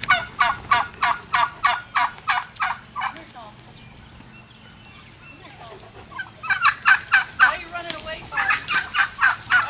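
Domestic turkeys calling in a fast run of sharp, evenly repeated notes, about three or four a second. The calls die away about three seconds in, leaving a few faint scattered calls. A second loud run starts about six seconds in.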